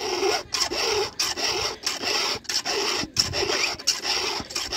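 Round file rasping across the cutters of a Stihl MS 382 saw chain, sharpening it by hand in quick, even strokes, about eight of them with short breaks between.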